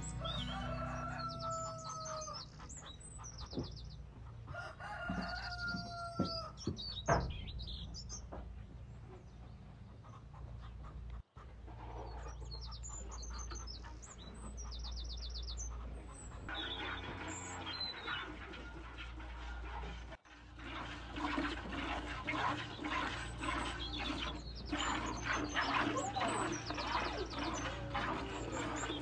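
Farmyard fowl: a rooster crowing, near the start and again about 5 s in, amid hen clucks and many quick high chirps from small birds, with the chirping and rapid sounds growing busier in the last third.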